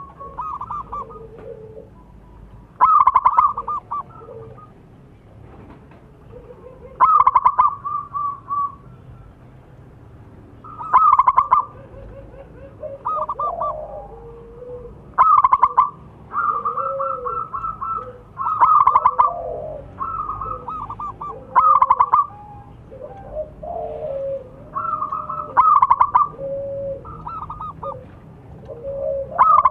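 Zebra dove (perkutut) cooing: loud phrases of rapid staccato notes repeated about every four seconds, with softer, lower calls between them.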